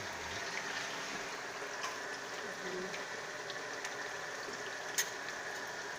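Red snapper pieces frying in hot oil in a pan, giving a steady sizzle, with a light click about five seconds in.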